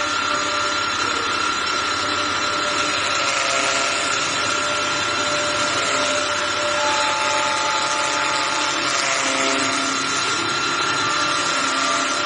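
CNC wood lathe running at steady speed: a whine of several steady tones from its drives over a continuous hiss of the machining, some tones coming and going partway through.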